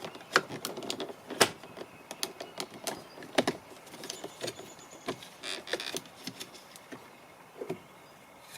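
Irregular plastic clicks and knocks as the interior door-handle bezel is pried and worked loose from the door trim panel, with two sharper snaps about a second and a half and three and a half seconds in.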